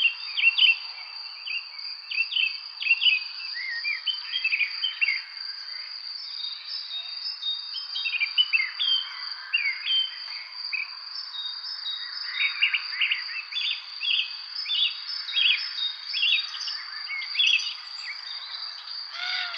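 Many songbirds chirping and calling in short, varied phrases over a continuous high, steady insect trill.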